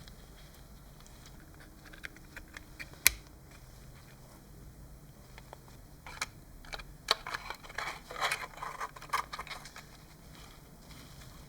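Small clicks and taps from small parts of a scale model truck being handled and fitted by hand. There is one sharp click about three seconds in, then a busy run of light ticks and scratchy taps from about six to nine and a half seconds.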